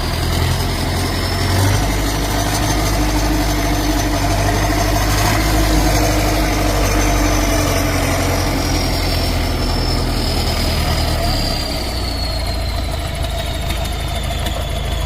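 Heavy excavator's diesel engine running steadily, with a thin high whine above it that slowly falls in pitch in the second half. The low engine sound eases a little about two-thirds of the way through.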